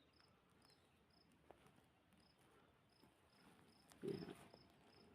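A cricket chirping faintly in a steady, evenly spaced series of short high chirps, about three a second.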